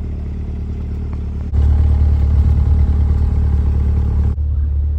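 Chevrolet C8 Corvette's V8 idling steadily with a low, even hum; it turns abruptly louder about a second and a half in and drops back near the end.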